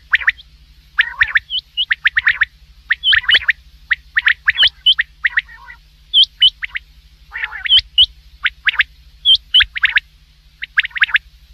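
Common quail calling over and over in quick groups of sharp, liquid notes, mostly three to a group, with a low steady hum underneath.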